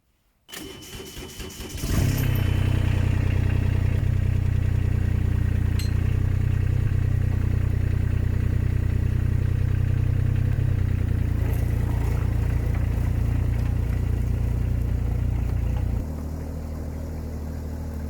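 JCB mini excavator's three-cylinder diesel engine cranked by the starter for about a second and a half, catching and running steadily: a test run after fitting a new air filter. About two seconds before the end its sound drops to a lower level.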